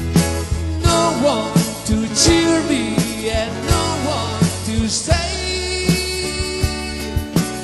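Live band playing a song: a man singing over an electronic keyboard and a drum kit, with held keyboard chords and a steady drum beat.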